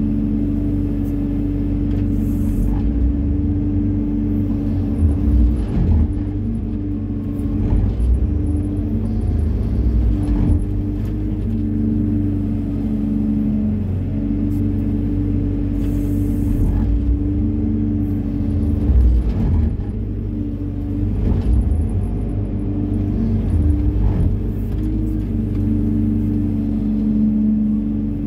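Hyundai 140 wheeled excavator's diesel engine and hydraulics running steadily under load, heard from inside the cab, with a few short knocks and swells as the boom and bucket work the sand.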